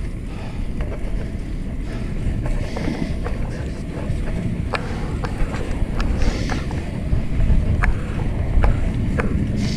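Wind buffeting the camera microphone and steady tyre noise as a fixed-gear bike rolls fast down a street, with a scattering of sharp clicks and knocks from about halfway through.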